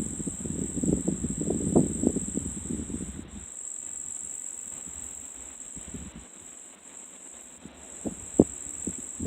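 A steady, high-pitched chorus of insects such as crickets runs throughout. For the first three and a half seconds it is overlaid by uneven rustling, like footsteps in brush, and a few sharp clicks come near the end.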